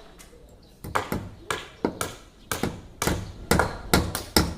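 Hammering: sharp, ringing hand-tool strikes on construction work, starting about a second in and repeating at about three a second, growing louder near the end.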